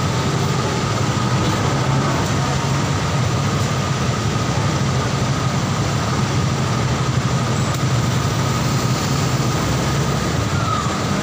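Steady engine noise of slow, congested street traffic: motorcycle and other vehicle engines running at low speed.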